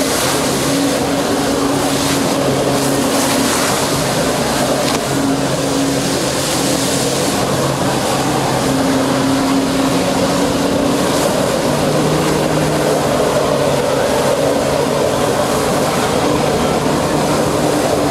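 Jet ski engine running hard to power a Flyboard through its hose, with a steady hiss of spraying water jets. The engine note shifts up and down a little as it runs.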